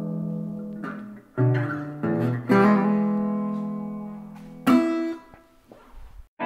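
Resonator guitar strummed: a handful of chords, each left to ring out and die away, the last one about five seconds in, fading to nothing near the end.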